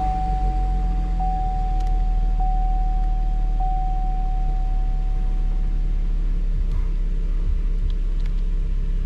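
A 2017 Camaro's 3.6-litre V6 idling steadily just after start-up, on fresh oil after an oil change. Over the first half a steady electronic dashboard chime pulses about every second, then fades out.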